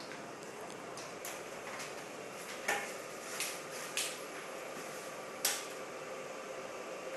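About five short clicks and light knocks of equipment being handled, spaced a second or so apart, over a faint steady hum.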